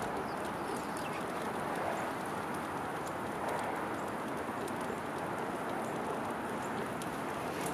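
Steady outdoor background noise with scattered faint small clicks: a squirrel cracking sunflower seed shells.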